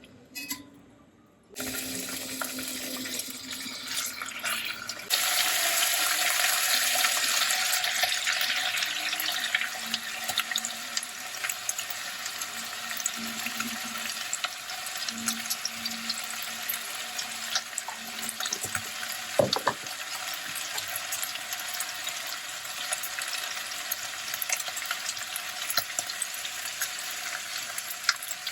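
Kitchen cooking noise: a steady hissing rush dotted with small crackles, of the kind a running tap or food sizzling in a pan makes. It starts shortly in, grows louder about five seconds in and eases a few seconds later. A short knock comes about two-thirds of the way through.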